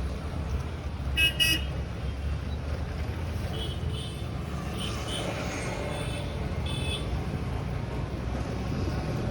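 Steady roadside traffic rumble, with a vehicle horn honking twice in quick succession about a second in and fainter horn toots a few seconds later.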